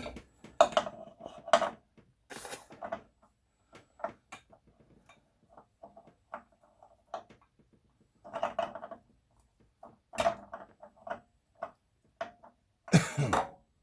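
Irregular knocks, clanks and scrapes of hand work at a stubborn oil filter on a Caterpillar 3208 diesel engine, with a louder cluster near the end.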